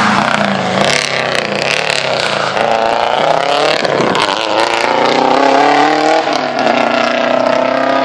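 Rally car engine at full throttle as it passes close by and pulls away down the road, the revs climbing and dropping through gear changes. A few sharp crackles come about a second in.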